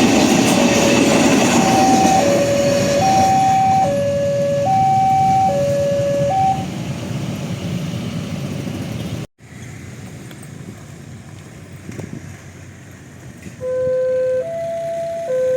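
Railway level-crossing warning alarm: an electronic two-note tone alternating about once a second over the noise of a passing train, stopping about six and a half seconds in. After a short break in the sound and a few quiet seconds, a second crossing alarm with slightly lower alternating notes starts near the end.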